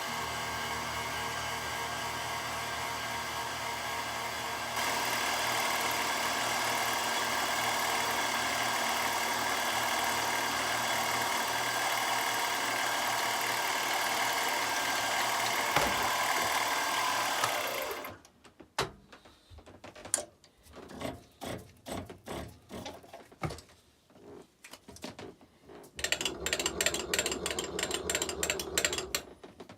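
A shop machine tool running steadily, getting a little louder about five seconds in, then shutting off abruptly. Scattered clicks and knocks follow, and near the end a few seconds of fast rhythmic scraping.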